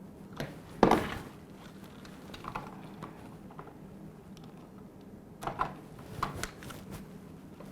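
Scattered clicks and knocks of plastic parts being handled as a dishwasher's wiring harness connectors are unclipped and pulled free. The sharpest knock comes about a second in, and a quick run of clicks follows a few seconds later.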